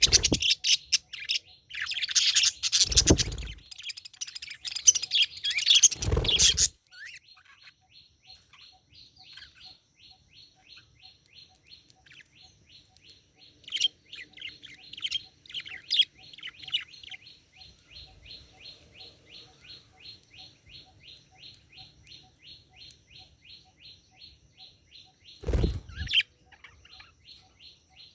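Budgerigars chattering and warbling loudly for the first several seconds, then a steady run of short, even chirps repeating about three times a second. A few brief low thumps come through the chatter and once near the end.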